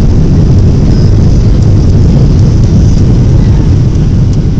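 Loud steady low rumble inside a jet airliner's cabin as it rolls down the runway after touchdown: jet engine noise mixed with the rumble of the landing gear on the runway.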